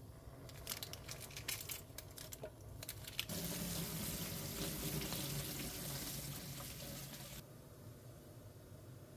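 Tap water running onto fresh kalguksu noodles in a perforated steel colander as they are rinsed by hand, a steady rush that starts about three seconds in and stops about seven seconds in. Before it, a run of short crinkly clicks.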